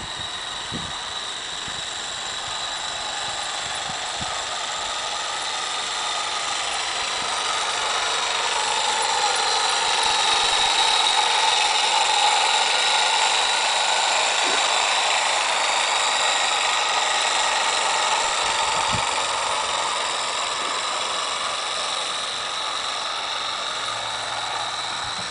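Small live-steam garden railway locomotive running past, a steady hiss of steam and exhaust that grows louder as it approaches, is loudest about halfway through, and then fades as it moves away.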